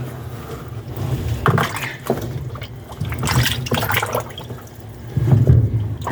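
Washing machine agitating, water sloshing in the tub in surges about every two seconds over a steady low motor hum. The machine is being run to free a garment caught in it.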